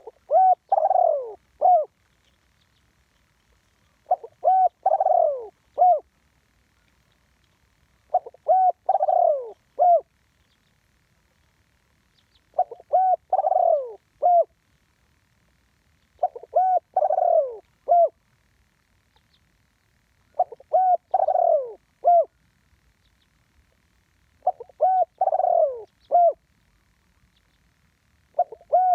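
Spotted dove cooing, repeating the same phrase about every four seconds: a few short clipped coos, a longer falling coo, then one short final note. Its call is of the kind Thai dove keepers call 'one kuk'.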